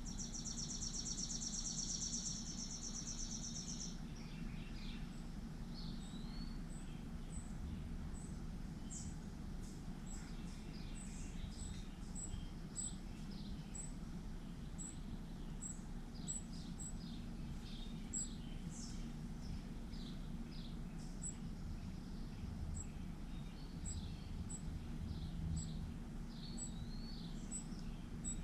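Backyard songbirds chirping, opening with a rapid high trill for about four seconds, then scattered short chirps and a high tick repeating about every half second, over a steady low hum.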